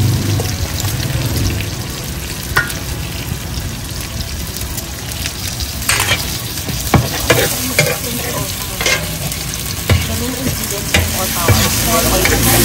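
Food sizzling and frying on a hot pan, with a metal spatula scraping and tapping against it several times in the second half.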